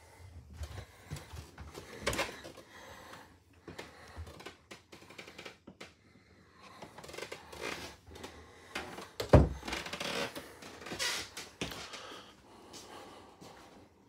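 Footsteps and knocks as someone walks down a short flight of steps inside an RV, with the loudest thump about nine seconds in.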